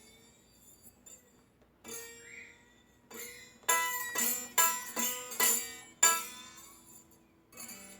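Acoustic guitar strings struck and slid upward in pitch, a technique for imitating a Formula 1 car: one sliding note about two seconds in, then a quick run of about six sharp, ringing strikes a second or so later.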